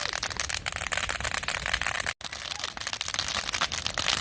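Dead, dry pampas grass burning hot, giving a dense run of sharp crackles and pops over a low rumble. The sound cuts out for an instant about halfway through.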